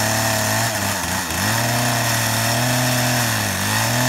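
Chainsaw running at high speed as it cuts into a tree trunk, its pitch dipping briefly twice, about a second in and near the end, as the chain loads up in the cut.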